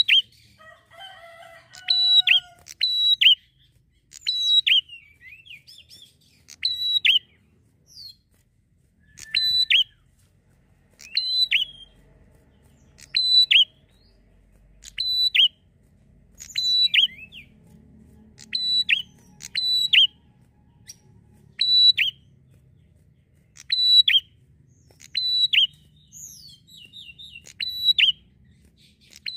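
Prinia (prenjak) calling: a sharp, high note with a quick falling flourish, repeated steadily about every two seconds, now and then as a quick pair.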